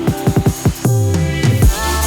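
Electronic background music with heavy drums and a deep bass line, a quick drum fill near the start.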